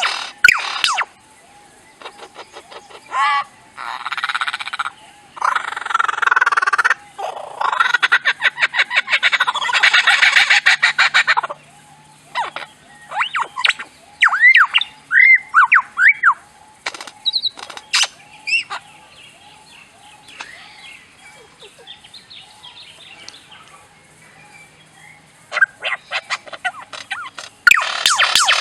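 Lyrebird singing a varied mimicry medley: rapid trains of clicks, loud noisy bursts, and, about halfway through, a string of short whistled notes that sweep up and down.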